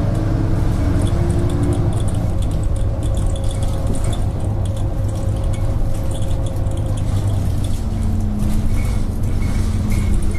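Interior noise of an Ikarus-bodied DAF single-deck bus under way: the diesel engine's steady low drone, with light rattling from the cabin fittings.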